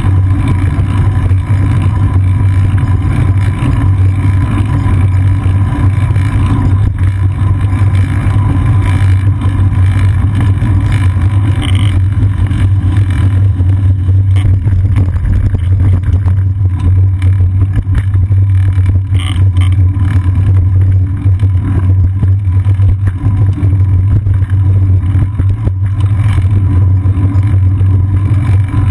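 Steady low droning rumble from a seat-post-mounted action camera on a moving bicycle: road vibration and strong wind on the microphone.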